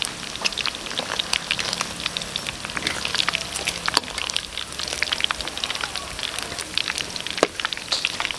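Hot oil sizzling and crackling around flour-dredged chicken wings deep-frying in a large wok: a dense, continuous patter of small pops, with a few sharper clicks.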